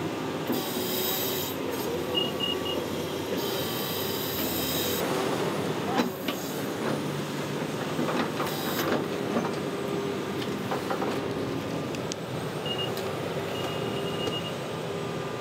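Caterpillar tracked excavator running steadily, its engine and hydraulics working, with two bursts of high metallic squealing in the first five seconds and a few sharp knocks a little later. Over it, the laser receiver on a grade rod beeps in short, rapid series, twice.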